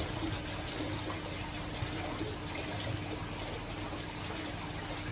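Aquarium water trickling and bubbling from aeration and filter flow, with a steady low hum underneath.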